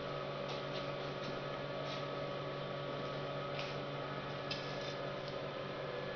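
Electric motor turning the steel roller drum of an oral thin film strip machine: a steady hum with a few faint, scattered light ticks.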